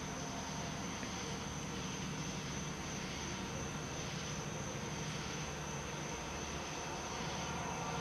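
Steady background hiss with a constant high-pitched insect trill over a low hum.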